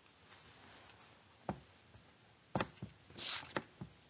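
Faint handling noises close to the microphone: a few short, sharp clicks and knocks starting about a second and a half in, with a brief hiss about three seconds in.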